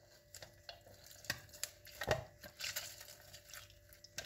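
Orange half pressed and twisted on a plastic hand citrus juicer: faint squelching of the fruit with light, irregular clicks and knocks of the plastic, a few of them louder.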